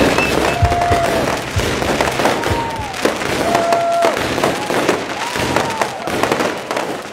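Fireworks going off: dense crackling with low booms, and whistling tones that hold or arc up and down.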